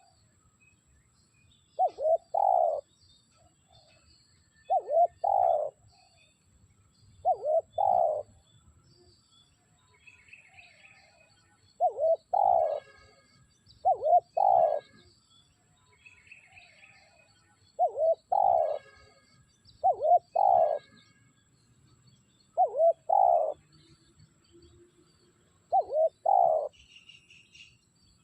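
Spotted dove cooing: a short phrase of two or three low, hollow notes, repeated nine times at intervals of a few seconds. Faint chirps of small birds sound between the phrases.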